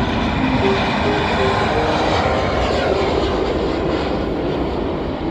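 Boeing 747-8F freighter taking off, its four GEnx-2B turbofans at takeoff thrust: a loud, steady jet roar as it lifts off. From about two seconds in, the engines' higher tones slide down in pitch as the aircraft climbs past.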